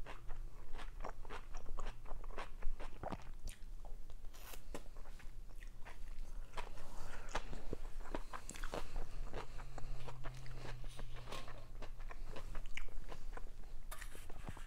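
Close-miked chewing of a dolma (stuffed grape leaf): wet mouth sounds with a steady run of small clicks and smacks.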